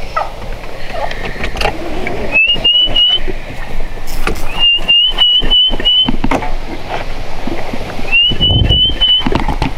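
Three quick runs of short, high whistled notes, four to six evenly spaced notes in each, each note sliding up slightly. Under them is the low rumble of a vehicle, which swells near the end.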